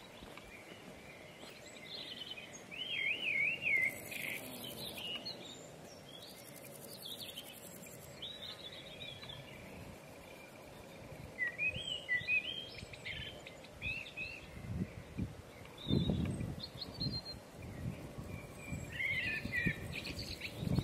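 Small songbirds chirping and singing in short, high phrases over a faint steady background, with a few low thumps in the second half.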